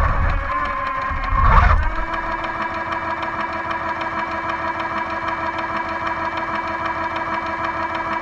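Radio-controlled Panther tank: its drive motors and tracks run for about the first two seconds, then it sits still while its sound unit plays a steady simulated engine idle.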